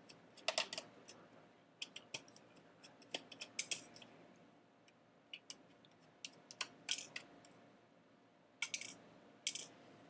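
Scattered light clicks and ticks of a small screwdriver working the tiny screws out of an iBook G4's battery bay.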